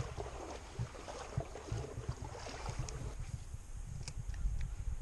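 Wind buffeting the microphone in uneven low rumbling gusts. A lighter rustling hiss runs over the first three seconds, and a few faint sharp clicks come about four seconds in.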